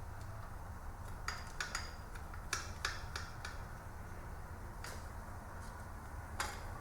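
Light metallic clicks and clinks of small engine parts and bolts being handled while the oil pickup is fitted to a Toyota 2SZ engine: a quick cluster of clicks about a second in, then two single clicks later.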